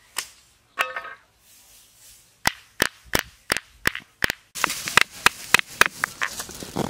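Dry straw crackling and popping as it catches fire. Before it, a run of about six sharp clicks comes about a third of a second apart.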